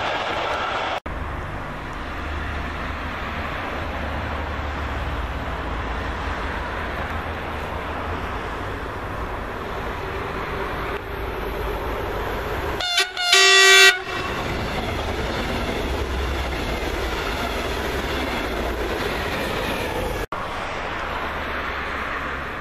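Steady rumble and wheel clatter of trains running on the line, with a loud train horn about 13 seconds in: a short toot followed by a longer blast. The horn comes from a red double-deck regional push-pull train approaching control car first.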